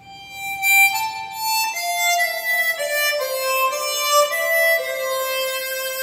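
Swan SW1248 chromatic harmonica played in a slow phrase of held notes that rises briefly and then steps downward. The harp has been made airtight (comb and mouthpiece sanded flat) for fuller tone.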